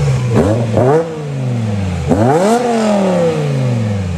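Car engine revving: two quick blips in the first second, then a longer rev that climbs for about half a second and slowly winds back down.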